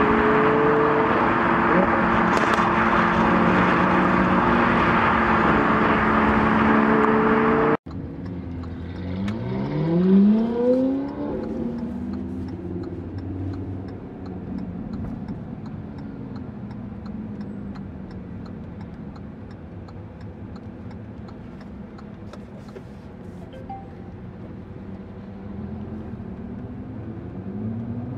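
A steady engine drone heard from inside a car cruising behind other sports cars, which cuts off suddenly about eight seconds in. Then a Ferrari 458 Italia's V8 with an IPE exhaust revs up ahead in rising sweeps, loudest a couple of seconds later, and fades as the car pulls away, rising again near the end.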